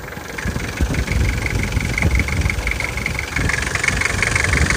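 Nissan TD27T 2.7-litre four-cylinder turbodiesel idling roughly, with a fast metallic clanking rattle over the engine's pulse that grows louder about two-thirds of the way in. The clank began after an injection pump rebuild, and the owner places it somewhere in the top of the engine but does not know its cause.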